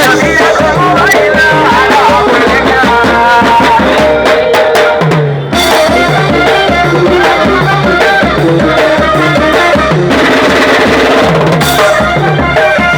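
Cumbia band playing: a melodic lead over steady hand percussion and drums, loud and continuous, with a short break about five and a half seconds in.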